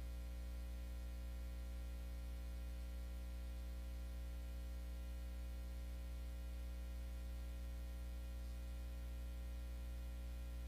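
Steady low electrical hum with a stack of overtones over a faint hiss, unchanging throughout: mains hum in the audio line, with no programme audio playing.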